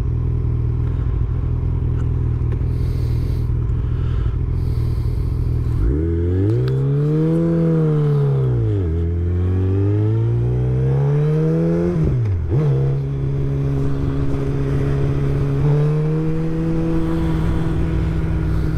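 Suzuki Hayabusa's inline-four engine on the move. It runs steadily at first, then about six seconds in the revs climb and fall, climb again, and dip sharply near twelve seconds in before it settles to a steady cruise.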